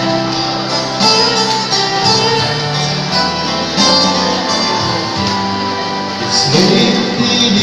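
Live music from two acoustic guitars, strummed and plucked together.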